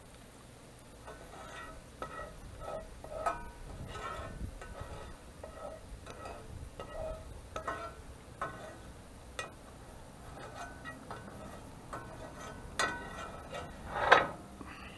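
Wire spider strainer scraping and clinking against a cast iron frying pan and a plate while bacon bits are scooped out of the fat, in irregular clinks with one louder, ringing clank near the end.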